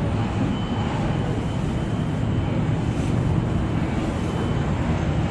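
Construction machine's engine running steadily, a low, even drone.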